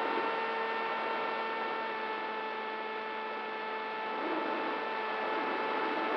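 DYS Fire 2206 brushless motor and propeller of an FPV flying wing at steady throttle, heard from the onboard camera: a constant whine with several overtones over a rush of airflow noise, easing slightly in loudness midway.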